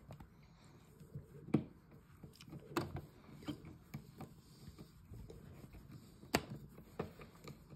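A screwdriver turning the screws of a plastic three-gang switch cover plate: faint scraping and handling, with a few sharp clicks at irregular intervals as the tip seats and the screws snug the plate down.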